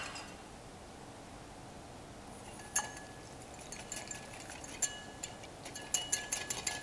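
Wire whisk clinking against a glass mixing bowl as corn flour is whisked with coconut milk: quick, light ticks from about four seconds in, after a single clink a little before three seconds and a quiet start.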